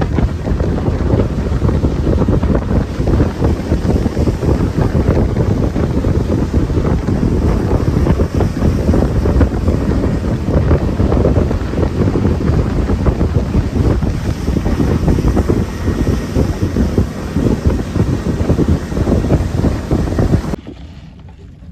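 Wind buffeting the microphone on a small open outboard-powered fishing boat running at speed, with the motor and the water rushing under the hull mixed in. The sound stops abruptly near the end.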